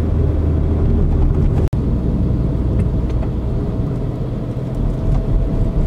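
Car running along the road, heard from inside the cabin: a steady low engine and tyre rumble. The sound breaks off for an instant a little under two seconds in.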